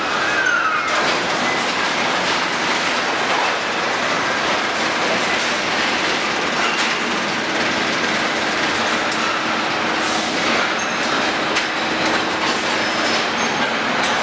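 Car assembly-line noise: a dense, steady clatter of machinery with frequent clanks and taps from tools and conveyors. A couple of short falling chirps sound at the very start, and a faint steady hum runs through the middle.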